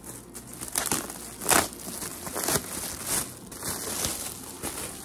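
Gift wrapping crinkling in irregular handfuls as a present is unwrapped by hand.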